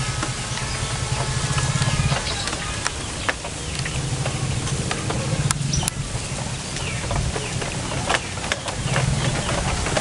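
A low motor engine hum that swells and fades several times, with scattered small-bird chirps and short clicks over it.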